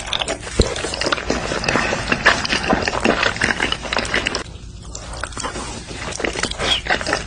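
Close-miked eating sounds: wet chewing and biting, a dense run of irregular smacks and clicks, with a brief pause a little past the middle.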